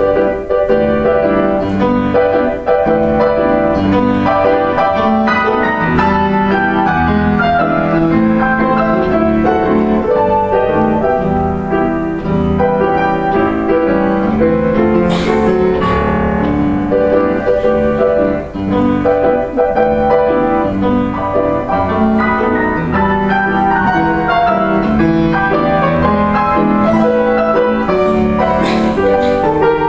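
Solo piano playing a 1932 novelty piano piece in the ragtime tradition: dense, fast runs of notes over a steady bass.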